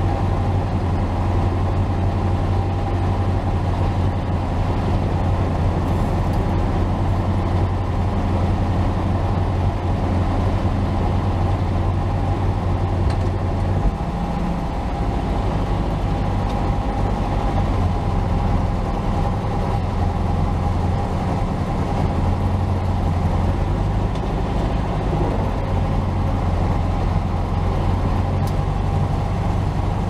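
A 1964 Volkswagen Beetle's 1500cc air-cooled flat-four engine running steadily, heard from inside the cabin with a strong low drone. The sound dips briefly and changes pitch about fourteen seconds in, then carries on.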